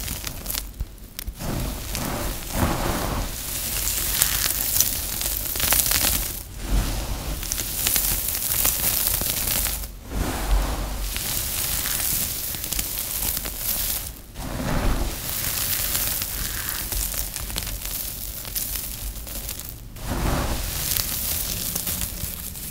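Dry, crumbled recycled soap chips being scooped, squeezed and crushed in bare hands: a crisp, crackling crunch, broken by a few brief pauses between handfuls.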